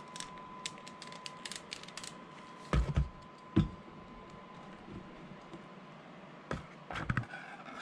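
Plastic figure parts clicking and tapping as they are handled and pushed together, with several heavier knocks: a few about three seconds in and two more near the end, as the figure's feet are set down on the desk mat.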